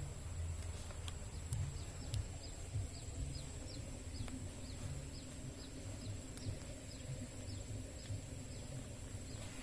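A bird calling in a quick series of short falling chirps, about two a second, starting about three seconds in. Under it run a steady high whine and a low rumble.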